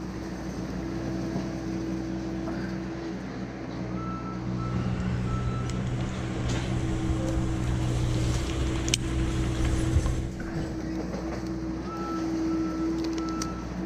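An engine running steadily, with a series of short, evenly spaced high beeps like a reversing alarm about four seconds in and again near the end, plus a few sharp clicks.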